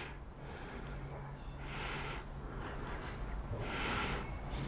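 A man breathing audibly through his nose, a few breaths about two seconds apart, over a low steady hum.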